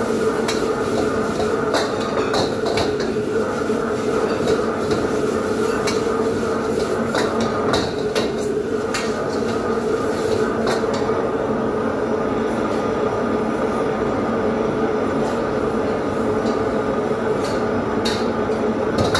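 Steady rushing hum of a commercial gas wok range and its overhead exhaust hood running, with a metal ladle clattering and scraping against a steel wok as food is stir-fried. The clatter is busy for about the first eleven seconds and then thins to a few knocks while the steady hum carries on.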